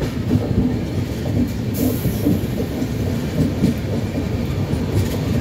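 Train running along the track, heard from inside a coach: a steady low rumble of wheels on rails, with a brief hiss about two seconds in.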